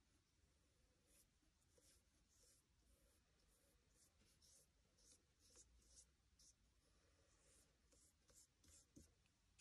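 Faint, short swishes of a paintbrush's bristles stroking paint onto paper, one or two irregular strokes a second.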